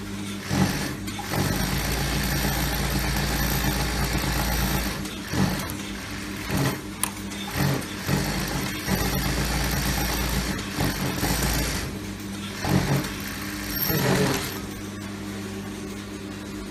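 Black House DH-155-A sweater linking machine running in bursts over a steady hum: one long run of about three and a half seconds near the start, then shorter stop-and-start runs, quieter over the last couple of seconds.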